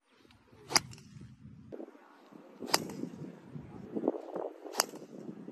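Driver clubhead striking a golf ball off a tee: three sharp cracks about two seconds apart.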